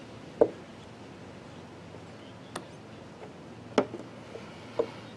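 Four short, sharp taps and clicks at irregular intervals as a small hand tool works screen-printing ink over a silkscreen frame, striking the screen and frame edge.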